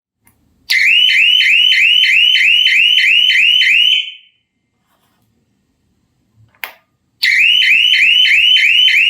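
Wireless electronic alarm siren sounding a loud, rapid rising whoop, about three sweeps a second, for about three seconds and then stopping. A single click follows, and the siren starts again near the end.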